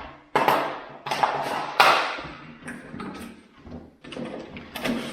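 Handling noise from unpacking tool-kit items: a series of sharp knocks and scrapes as hard plastic parts are picked up and set down, three stronger ones in the first two seconds and lighter ones near the end.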